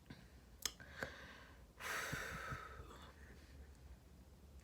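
A woman's breathy exhale, like a sigh, about two seconds in and lasting about a second, after two soft mouth clicks: a strained attempt to bring up a burp that does not come.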